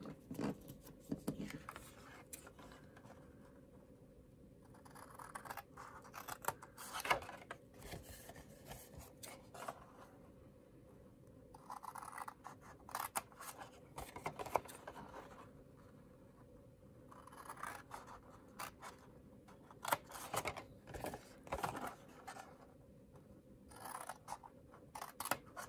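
Scissors making short snipping cuts into printed cardstock, in several separate runs of snips with pauses between them.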